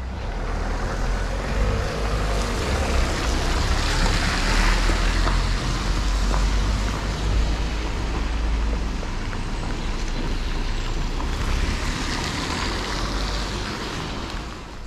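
Tyres hissing on the rain-soaked road as vehicles pass, swelling about four seconds in and again near twelve seconds, over a steady low rumble.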